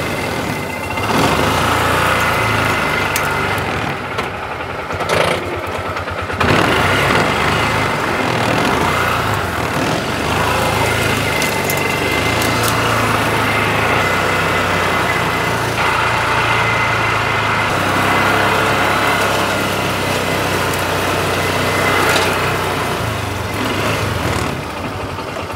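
Engine of an open farm utility vehicle running steadily while it is driven over rough grassland, with a couple of sharp knocks about five and six seconds in.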